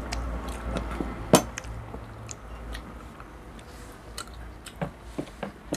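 People chewing a meal of rice and grilled food, with scattered small clicks of spoons against plates and one sharp clink about a second and a half in.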